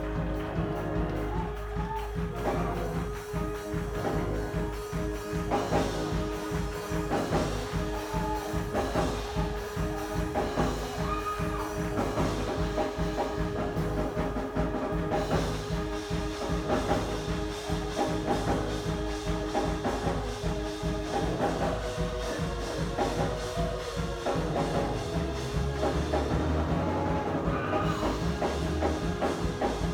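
Music with a steady drum-kit beat under sustained held chords.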